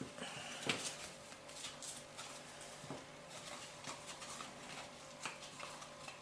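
Cardstock being handled and pressed by hands: faint scattered rustles, scrapes and small taps of paper on paper and on a cutting mat, the sharpest click less than a second in.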